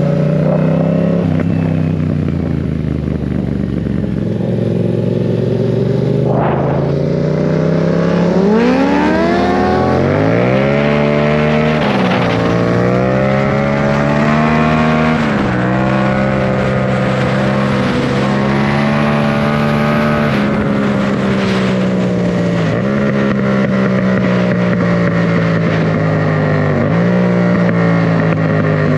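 Motorcycle engine and exhaust under way. The engine note climbs steeply from about eight to twelve seconds in as the bike accelerates, then holds high with short dips in pitch a few times.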